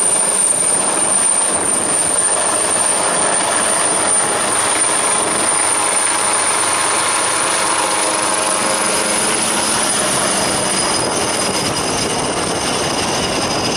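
AgustaWestland AW139 twin-turbine helicopter lifting off a helideck and climbing away: dense rotor and engine noise with a steady high turbine whine on top, easing off slightly near the end.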